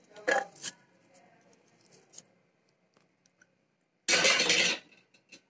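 Short rustles and light knocks as a handful of mint leaves goes into a steel mixer-grinder jar. The loudest, a rustle lasting under a second, comes about four seconds in.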